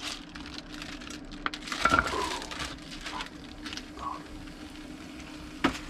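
Clicks and knocks from handling a portable camping gas stove, loudest about two seconds in, with a sharp click near the end, over a steady low hum.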